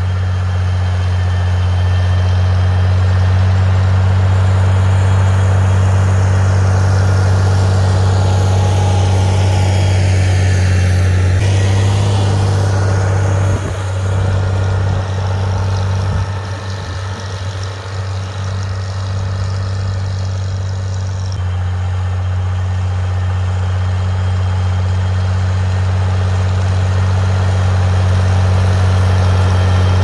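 Farmall 756 tractor engine running steadily while the tractor works snow with its blade. The engine drops off a little about halfway through, then comes back up.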